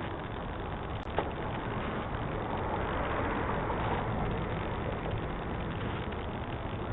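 Steady background noise through a doorbell camera's microphone, with one sharp click about a second in and a broad swell in the middle lasting about two seconds.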